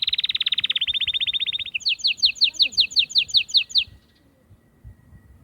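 Canary (Serinus canaria) singing: a fast rolling trill, then a slower run of sharp, falling notes at about six a second. The song stops about four seconds in.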